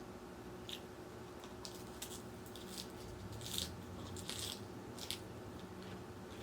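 Close-up chewing of crisp raw salad vegetables, about six separate crunches with the loudest two in the middle.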